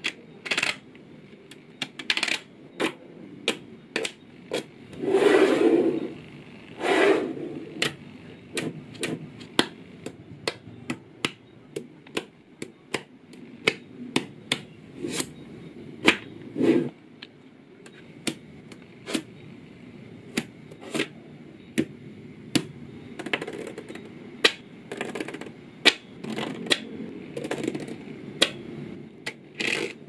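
Small neodymium magnet balls clicking and clacking as they snap together and are pried apart, in quick irregular ticks. A few times a plastic card scrapes and rubs across the layers of balls.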